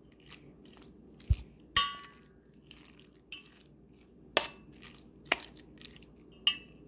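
Chicken being mixed with a spice marinade in a bowl: soft wet crunching and squelching with several sharp knocks against the bowl, one about two seconds in ringing briefly.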